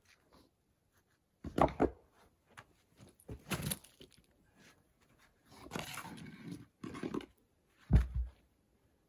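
Flat stones being lifted and set on a stone stack under a porch beam: heavy stone-on-stone thuds about one and a half seconds in and again near the end, with rock scraping and grinding in between.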